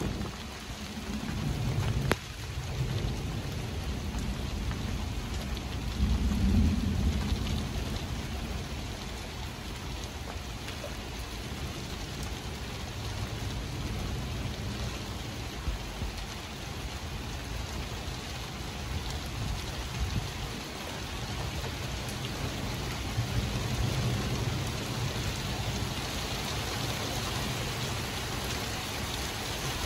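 Steady rain hiss under a thunderstorm, with rolling thunder rumbling low several times: a sharp crack about two seconds in, the loudest rumble a few seconds later, and another near the end.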